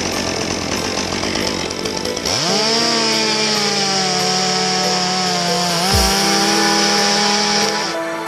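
Chainsaw revved up sharply about two seconds in and held at high speed for several seconds, with a brief dip in pitch and a low thud about six seconds in, then dropping off near the end. Background music plays underneath.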